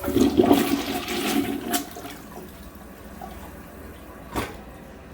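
Toilet being flushed: a loud rush of water for the first two seconds, easing into a quieter steady run of water, with a sharp knock about four seconds in.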